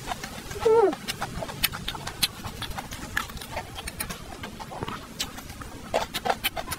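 Close-miked chewing and mouth sounds of someone eating pork ribs with rice: irregular wet clicks and smacks, with a short hummed vocal sound about a second in.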